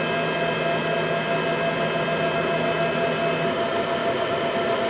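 Flashforge Dreamer NX 3D printer starting a print: its fans run with a steady whir while its stepper motors whine as the build platform rises toward the nozzle, the whine stopping about three and a half seconds in.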